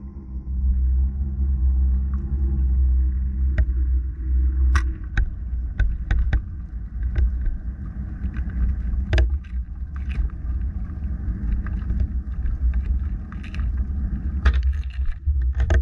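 Underwater rumble picked up by an action camera in its waterproof housing as it sinks on a fish-descending rig, with a low hum that stops about three and a half seconds in and scattered sharp clicks and knocks.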